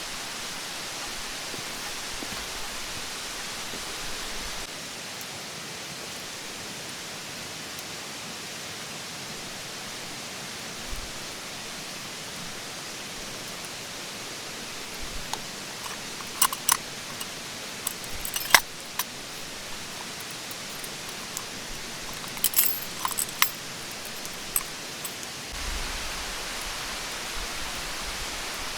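Steady rushing of a mountain stream, with two short runs of small metallic clinks and jingles in the second half.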